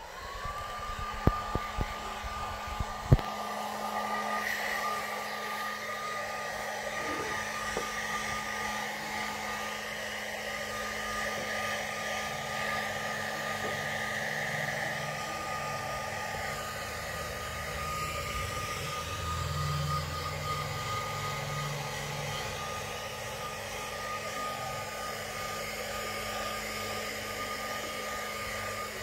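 Hair dryer switching on and then blowing steadily, with a steady whine over the rush of air. A few sharp knocks come in the first three seconds.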